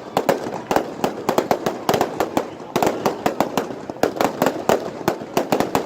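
Fireworks display going off: rapid runs of sharp bangs and crackles, several a second with hardly a pause between clusters.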